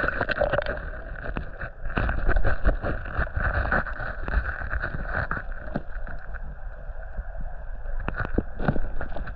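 Water sloshing and splashing with many short irregular splashes, as someone wades through a shallow creek, over a steady low rumble.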